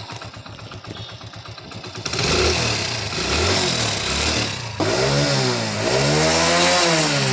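Hero Splendor's single-cylinder four-stroke engine idling with a fast, even putter. About two seconds in it is blipped louder, then revved up and down again and again in regular swells about once a second.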